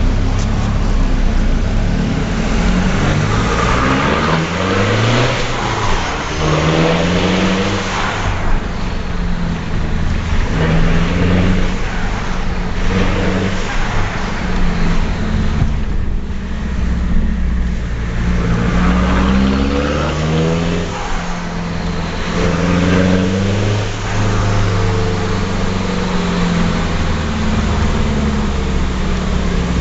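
Ford Mondeo TDDi's four-cylinder turbodiesel running through a straight-through exhaust with no silencers, loud and unmuffled. The engine is pulling hard again and again, its pitch climbing and dropping back several times, as at gear changes.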